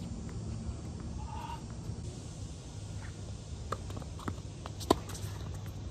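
Tennis rally on a hard court: a string of sharp ball impacts, racket hits and bounces, starting about three seconds in, the loudest a near hit about a second before the end. A short squeak sounds about a second and a half in, over a steady low hum.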